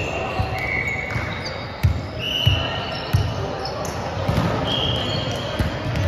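Sneakers squeaking on an indoor court floor during a volleyball rally: four short, high squeaks, mixed with thumps of feet and the ball, all echoing in a large hall.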